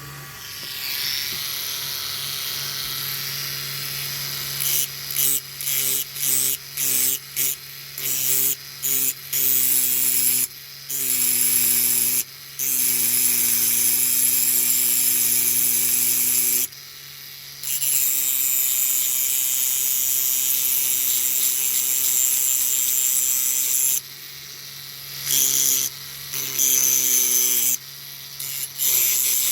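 Small handheld electric rotary tool or mini drill, running at a steady pitch in on-off bursts: a string of short bursts, then longer runs, on diecast metal to remove a loose part.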